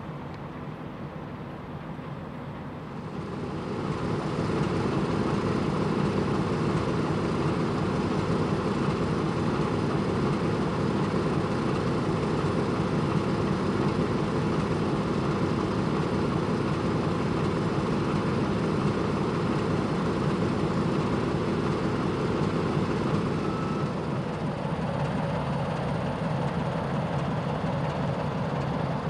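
CFR diesel-electric locomotive approaching and passing while hauling a train of coal hopper wagons, its engine growing louder about four seconds in and holding steady. Near the end the hopper wagons roll past on the rails.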